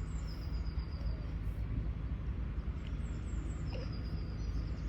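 Small birds singing in short phrases of high, falling whistled notes, heard twice, over a steady low rumble.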